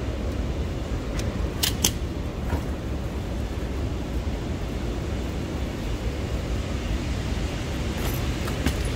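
Steady low rumble of a large airport hall, with a few sharp clicks about one and a half to two seconds in and again near the end.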